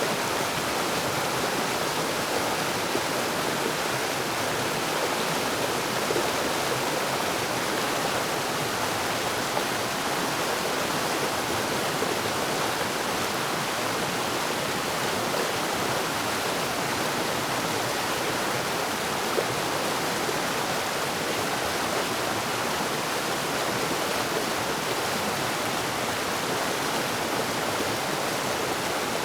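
Forest waterfall: water falling and rushing in a steady, even roar.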